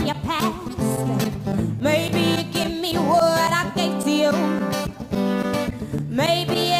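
A young woman singing a soul-pop song live, with wavering held notes, over a strummed acoustic guitar, with a tambourine jingling along.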